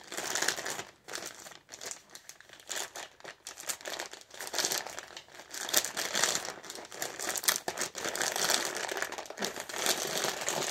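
Plastic poly mailer bag crinkling and rustling unevenly as hands grip it and pull it open.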